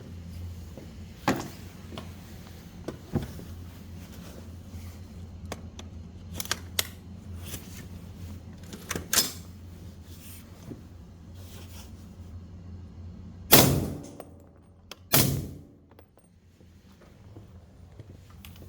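Two suppressed shots from a 10.5-inch 300 Blackout with a Resonator K suppressor, firing 220-grain subsonic ammunition, about a second and a half apart near the end. Each is a low, bassy thump with a short ringing tail. Fainter clicks and knocks come earlier.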